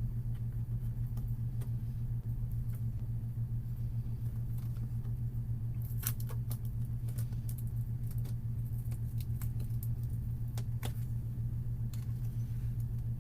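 Scattered light clicks and taps of plastic as a pick works a laptop's screen bezel loose, over a steady low hum.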